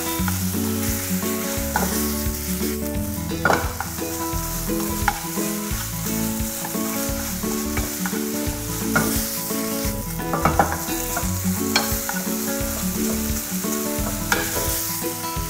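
Chicken mince and red curry paste sizzling in a frying pan, with a metal spoon scraping and clicking against the pan as the mince is stirred and broken up. A soft background tune runs underneath.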